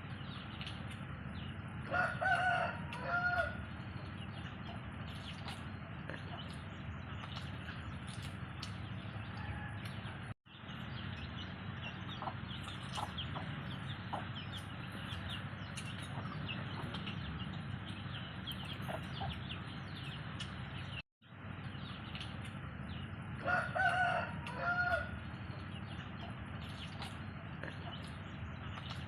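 A rooster crowing, a short pitched call of about a second and a half, once about two seconds in and again near the end, over a steady background hiss with scattered faint clicks.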